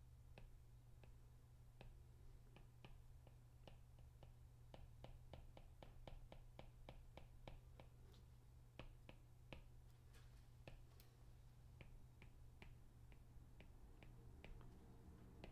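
Faint, uneven clicks of a stylus tip tapping a tablet's glass screen as short shading strokes are drawn, about two or three a second, over a low steady hum.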